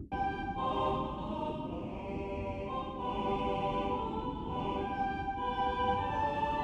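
Outro music of sustained choir-like voices holding slowly changing chords over a low rumble, starting suddenly at the outset.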